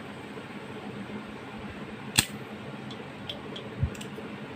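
Green gas can nozzle pressed onto an airsoft gas magazine's fill valve: a sharp click about two seconds in, a few faint ticks, and a dull knock near the end.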